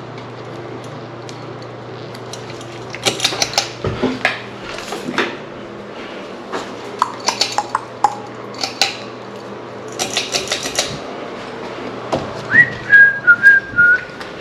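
Small metal parts and tools clinking and rattling in several bursts of sharp clicks, over a steady low hum. Near the end someone whistles a few notes, the loudest sound.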